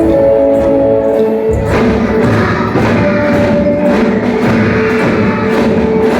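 Children's drum band music: held melodic notes over a steady drum beat, the sound growing fuller about two seconds in.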